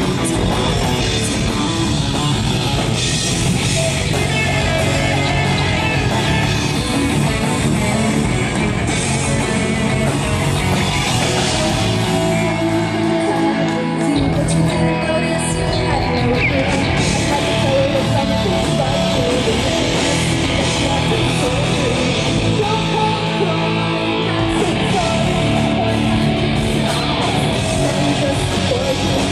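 Rock band playing loud, continuous music with guitar and singing.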